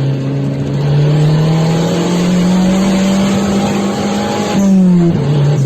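Car engine and exhaust droning under way, the note rising slowly as it gathers speed, then falling sharply about four and a half seconds in, as at a gear change, and settling at a lower pitch.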